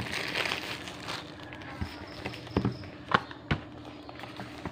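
Small cardboard product boxes being handled: rustling and sliding for about the first second, then several sharp knocks as a box is set down and tapped against the tabletop.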